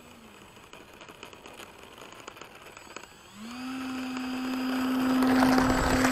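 Electric ducted fan of an RC F-35 jet (64mm five-blade fan on a 5100kv motor) spooling up about three seconds in and running at a steady pitch as a whine, getting louder as the model taxis, then dropping away near the end. A brief faint blip of the fan comes right at the start.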